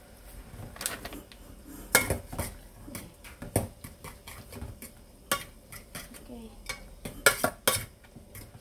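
A utensil clanking and scraping against a metal pot as drained instant noodles are stirred through their sauce, in irregular sharp knocks. The loudest comes about two seconds in, and two more come close together near the end.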